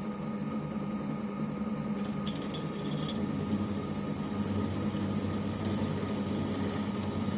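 Optimum B17 Pro bench drill press with its 500-watt motor running at 900 rpm, a steady hum. A lower hum joins about halfway through.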